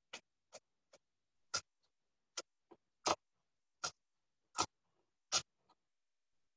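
Knife slicing a fennel bulb on a cutting board: about ten separate chops, each a sharp tap of the blade on the board, roughly one every 0.7 seconds.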